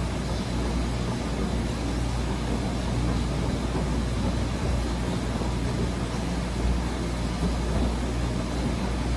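Wascomat Senior W125 35-pound commercial front-load washing machine running, a steady low machine hum under an even rushing noise.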